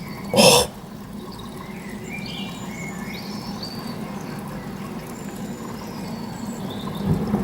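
Thunder begins to rumble in near the end, a few seconds after an exclamation. Before it there is a steady outdoor background with scattered short high chirps.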